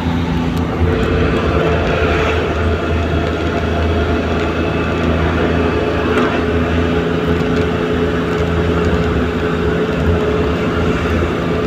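Steady engine drone and road noise inside the cabin of a moving vehicle cruising along a highway.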